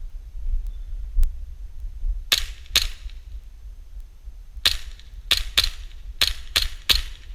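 Airsoft gun firing single shots: two sharp pops close together, a pause, then six more in quick succession. A steady low rumble of wind and handling noise on the helmet camera runs underneath.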